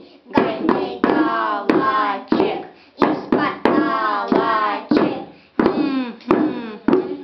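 Small djembe-style drums beaten with sticks in a steady rhythm, with a child singing along over the strokes.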